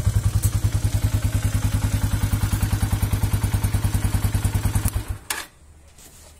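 Minsk motorcycle engine idling with an even, rapid beat, then shut off about five seconds in, followed by a single sharp knock.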